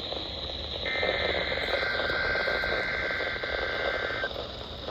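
NOAA Weather Radio SAME header data burst heard over a weather radio receiver: a two-tone digital data signal that starts about a second in and stops about four seconds in, over steady radio static. The burst encodes a Required Weekly Test alert.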